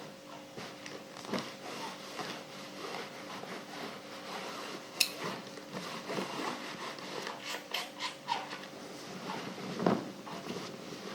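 Clothes iron sliding back and forth over fabric on an ironing board, a steady rubbing with scattered knocks. A sharp click comes about five seconds in and a thump near the end.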